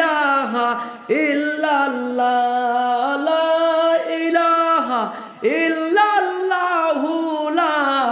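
A cappella male singing in a Bengali Islamic devotional song: one voice holding long notes that bend and glide between phrases, with no instruments.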